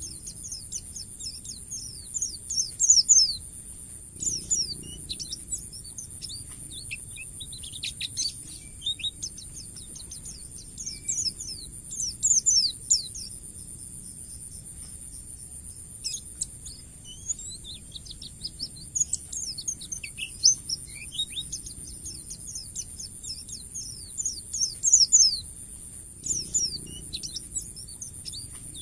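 White-eye (pleci) singing in a long, rapid chattering 'ngalas' song: bursts of quick, high, sliding chirps every few seconds, over a steady high-pitched whine.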